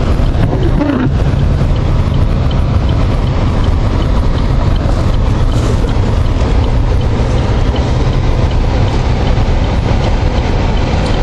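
Steady rumble of a vehicle being driven on a snowy road, heard from inside the cabin: engine and tyre noise.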